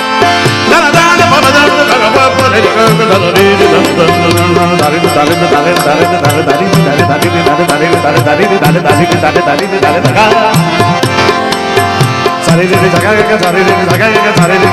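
Instrumental Indian music: tabla playing a steady rhythm under sustained melodic instruments, with no singing.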